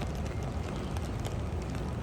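Steady rain falling, with scattered drop ticks over a low rumble.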